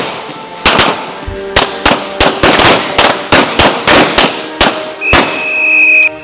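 Semi-automatic pistols fired by several shooters on a range: a rapid, uneven string of about fifteen shots, some overlapping, with music underneath. A high steady tone sounds for about a second near the end.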